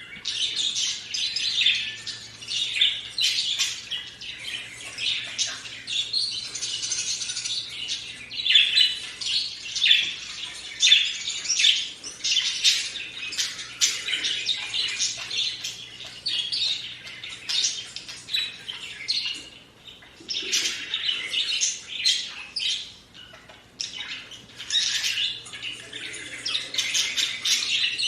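Budgerigars chirping and warbling in a dense, rapid stream of high chirps, with a couple of short lulls in the second half.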